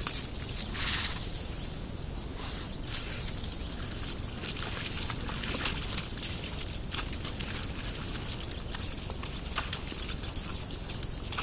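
A group of wild boar moving about and wallowing in mud and leaf litter: many short, irregular rustles and scuffs over a steady hiss.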